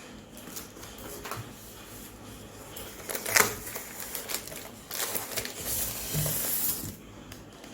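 Cardboard box and packing being handled and rummaged through: scattered rustling and scraping, with a sharp knock about three and a half seconds in and a longer stretch of rustling near the end.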